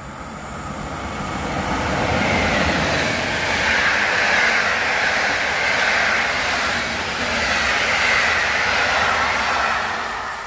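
Passenger train hauled by an EP07 electric locomotive running through a station at speed: a rush of wheels on rails and air that builds over the first two seconds, stays loud while the coaches go past, and fades near the end as the train draws away.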